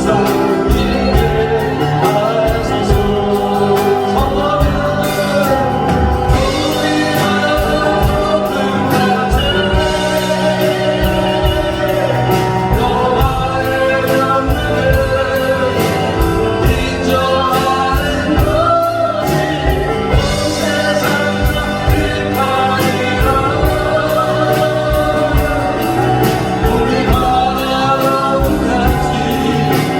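Contemporary Christian worship song: voices singing a melody over band accompaniment with a steady beat.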